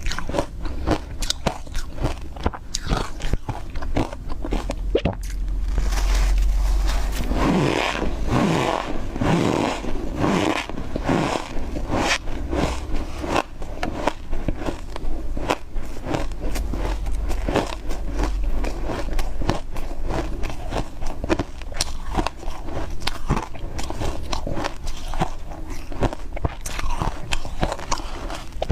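A person biting and chewing big chunks of freezer frost close to the microphone: rapid, dense crunching and crackling of the ice.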